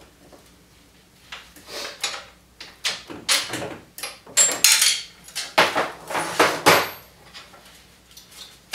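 Socket and wrench clinking and scraping on metal in irregular bursts as the bolts holding a UTV's front frame support are undone and taken out.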